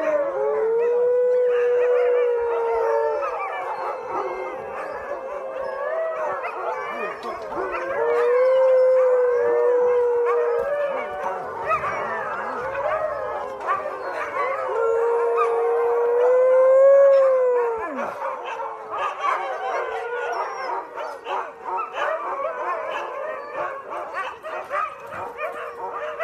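Several huskies howling together in a chorus: one dog holds three long, steady howls while the others howl over it at wavering, overlapping pitches. About two-thirds of the way in, the long howls stop and the calls turn shorter and choppier.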